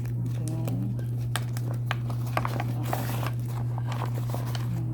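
Plastic crinkling and scattered light clicks as a waterproof belt bag is handled, over a steady low hum.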